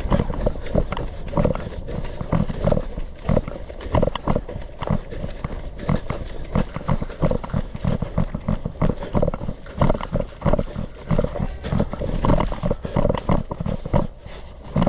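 Running footsteps with the thud and jostle of carried gear, heard close on a body-worn camera microphone. The thuds repeat about two to three a second and die down near the end.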